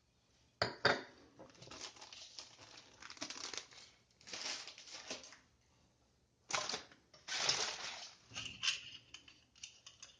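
Small craft pieces being handled on a tabletop: two sharp clicks about half a second in, then stretches of crinkly rustling with light clinks.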